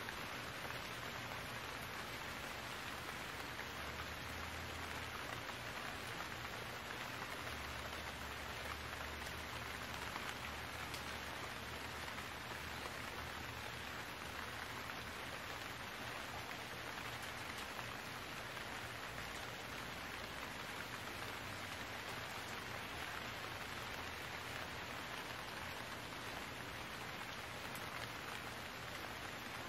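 Steady rain falling, an even hiss of drops on water and ground. A faint low hum sits underneath from about 4 to 13 seconds in.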